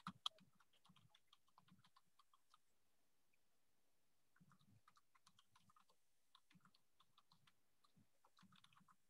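Faint typing on a computer keyboard: soft, irregular key clicks that pause for about two seconds partway through.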